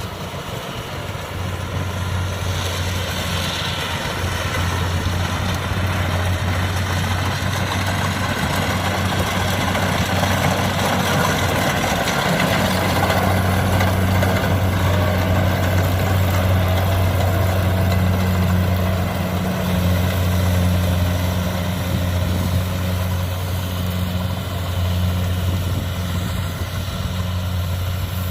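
Kubota DC70 combine harvester running while harvesting rice: its diesel engine holds a steady low hum, with a broad mechanical rattle and hiss over it. It grows slightly louder over the first few seconds, then stays steady.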